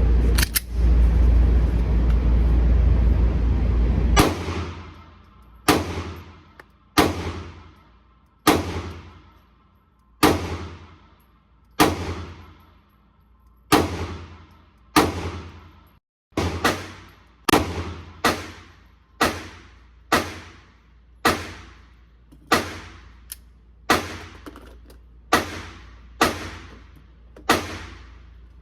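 A 9mm handgun firing a long string of single shots at an indoor range, each shot ringing off in a short echo. The shots start about four seconds in, after loud low rumbling, and come at about one per second and a half at first, quickening to nearly two a second in the second half.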